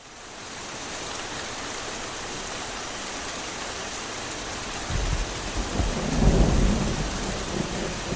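Steady rain hiss fading in, then a low rumble of thunder starting about five seconds in, swelling and slowly dying away under the rain.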